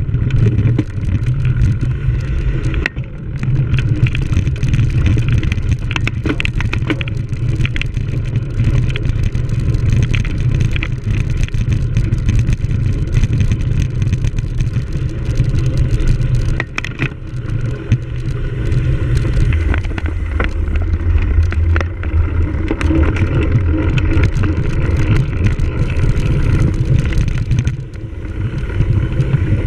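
Wind buffeting a camera microphone on a cyclocross bike during a race, a constant heavy rumble. Over it comes a steady, irregular clatter of the bike rattling over rough off-road ground.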